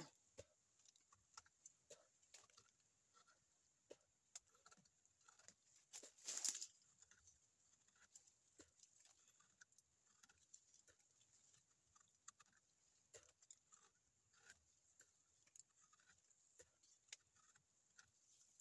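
Faint, irregular small scrapes and clicks of teeth gnawing and peeling bark from a young tree trunk, with one louder scrape about six seconds in.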